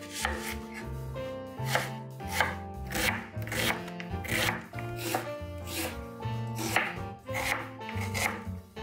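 Chef's knife chopping an onion on a bamboo cutting board: a steady run of sharp knocks, about two a second, as the blade cuts through the onion onto the wood.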